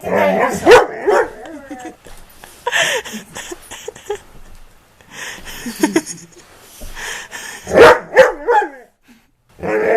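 Bullmastiff barking and whining in several separate bouts, each opening with a loud, sharp bark.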